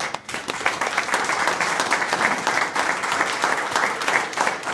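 A small group of people applauding: dense hand-clapping that starts suddenly and keeps going.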